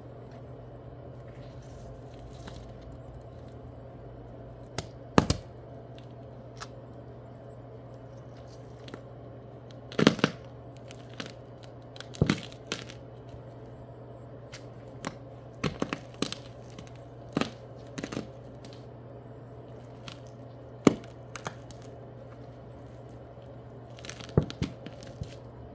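A whole cucumber being slowly crushed under a socked foot, its flesh breaking in sharp snaps and cracks at irregular intervals. Some come singly and some in quick clusters of two or three.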